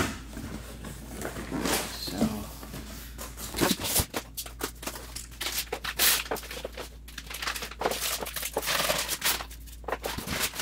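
Cardboard packing and plastic wrap being handled as a box is unpacked: irregular rustling, scraping and crinkling, busier and more crackly in the second half.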